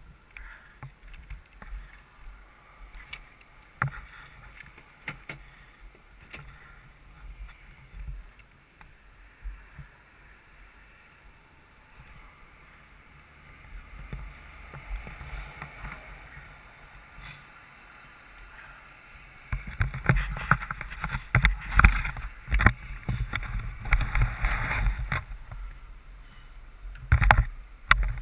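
Rubbing, knocking and rumbling handling noise on a helmet-mounted camera's microphone, with scattered clicks. It grows much louder and rumbling about two-thirds of the way in, as the helmet is handled.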